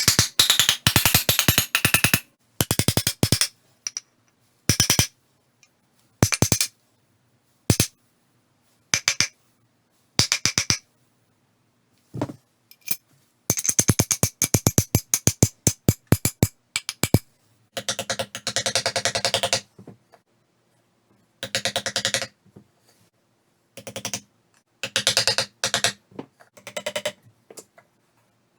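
Tools striking wood in woodworking, in quick runs of sharp blows, sometimes several a second, broken by short pauses.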